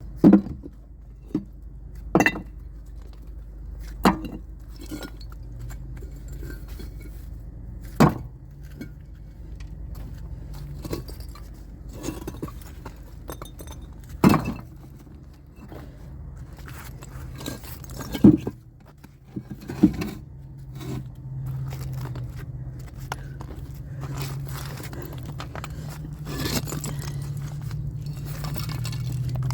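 A skid steer's engine running steadily, with a series of sharp knocks and clinks of concrete blocks being loosened from a basement wall and tipped into the bucket. There are about a dozen separate hits, the loudest near the start and again around the middle.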